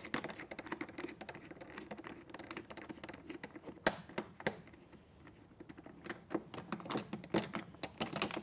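Rapid small clicks and rattles of a black twist-lock shoulder rest post on a Balanced Body Studio Reformer carriage being unscrewed by hand. A few sharper clicks come about four seconds in and again near the end as the post is worked loose.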